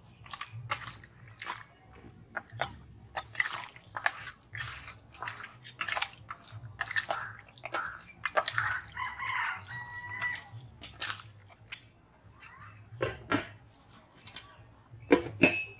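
Flat metal spatula mixing mutton pieces in a wet curd-and-spice marinade in a stainless steel bowl: irregular squelching slaps and scrapes against the steel. Near the end a steel lid knocks onto the bowl with a brief metallic ring.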